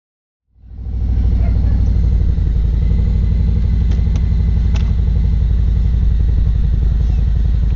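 Motorcycle engine idling, a steady low rumble that starts abruptly about half a second in, with two faint clicks near the middle.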